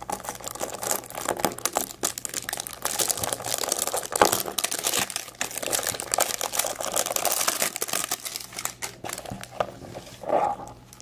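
Crinkling and crackling of plastic as hands twist and pull open a large clear plastic surprise egg packed with wrapped candy, in an irregular run of small crackles.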